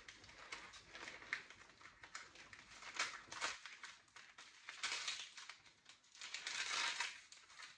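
Wrapping paper crinkling and rustling in irregular short bursts as a small wrapped parcel is opened by hand.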